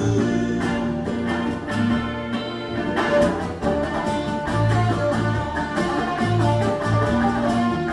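A band playing an instrumental passage: guitars carrying the melody over a repeating bass line, with light percussion keeping time. There is no singing.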